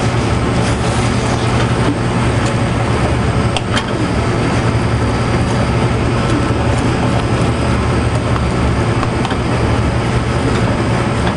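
Steady, loud kitchen rumble and hiss with a low hum, under a wooden spoon stirring a ground beef, orzo and tomato sauce mixture in an aluminium pot on a gas burner. A few light scrapes or clicks stand out.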